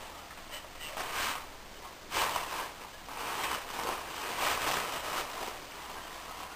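Toilet paper rustling and crinkling as a cat rolls in it and bats at it. The rustling comes in irregular bursts: a short one about a second in, another just after two seconds, and a longer stretch in the middle.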